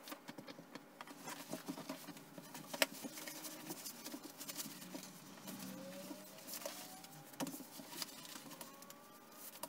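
Stretchy fabric rustling and scuffing, with scattered small clicks, as a HEALTOP knee support sleeve is pulled up the leg over trousers.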